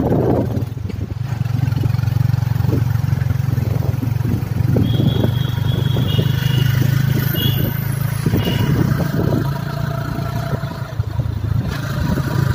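Motorcycle engine running steadily at cruising speed, heard from on the bike, with wind and road noise over it.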